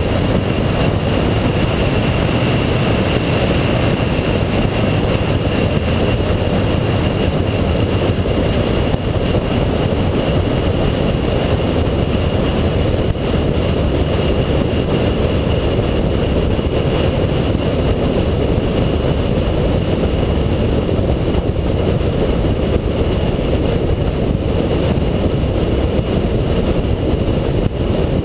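2007 Ford Shelby GT500's supercharged 5.4-litre V8 cruising at a steady speed, its drone mixed with wind and road noise. The sound stays even, with no revs rising or falling.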